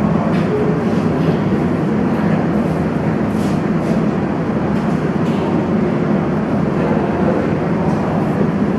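Steady, loud rumbling background noise with no clear source, with a few faint clicks.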